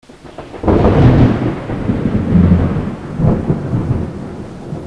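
Thunder: a sudden loud peal about half a second in that rolls on as a deep rumble, swelling again around three seconds and slowly fading.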